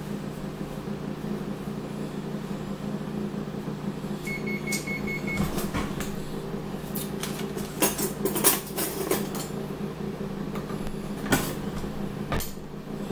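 Steady hum of a running kitchen appliance, with a quick run of high electronic beeps about four seconds in. Several sharp knocks and clatters of kitchen items follow in the second half.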